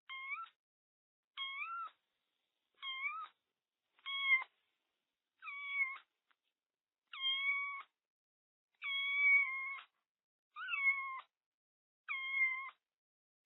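Kitten meowing over and over: nine short, high-pitched meows about every one and a half seconds, the middle few drawn out longer, with nothing else heard between them.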